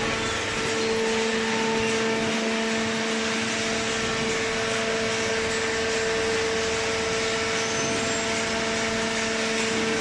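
Hydraulic cardboard baler's power unit running: a steady mechanical hum with a constant low whine.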